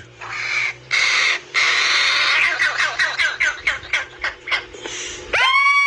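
Fledgling corvid begging while being fed: harsh, raspy calls, a few long ones and then a quick run of short ones. About five seconds in they stop and a long, steady, high-pitched note begins.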